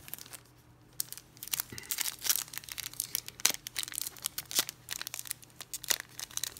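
Foil wrapper of a Panini Prizm football card pack being torn open by hand. There is a quick busy run of crinkling and tearing from about a second in.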